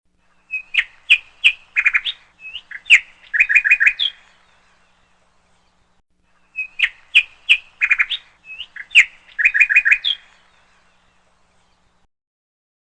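Bird song: a quick phrase of chirps, short whistles and rapid rattling notes, played twice in exactly the same form with a pause between, as a looped recording.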